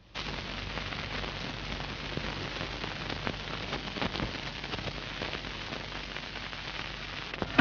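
Surface noise of an old film soundtrack: a steady crackling hiss with scattered pops and clicks over a faint low hum.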